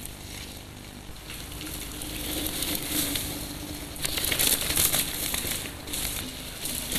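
Mountain bike tyres rolling and skidding over a dirt trail as downhill riders pass close by, a rough noisy rush that swells loudest about four to five seconds in.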